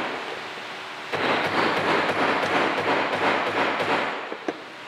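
A hammer driving a steel spring pin into a valve stem set on a steel bench block: a dense run of quick small taps, then one sharper tap near the end.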